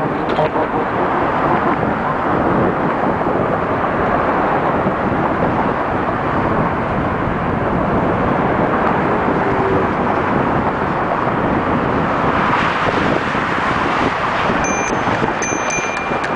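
Steady rush of heavy car traffic passing close by on a multi-lane highway, mixed with wind noise on the microphone of a moving bicycle. Near the end, short high-pitched rings repeat several times.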